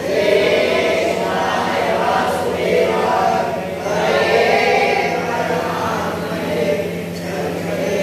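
A group of voices singing a Hindu devotional kirtan together in unison, in repeated sung phrases.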